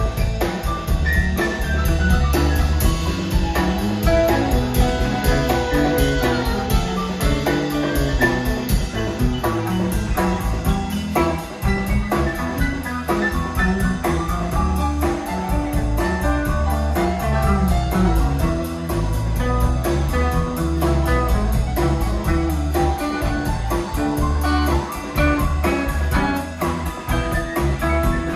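Live band playing an instrumental passage: electric guitar, electric bass, drum kit and keyboard, with a harmonica played into a cupped microphone.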